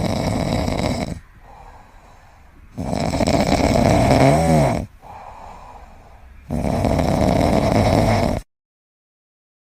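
A pet snoring in a slow, even rhythm, with loud snores about two seconds long alternating with quieter out-breaths. The middle snore ends in a short wavering whistle. The sound cuts out abruptly near the end and then starts again.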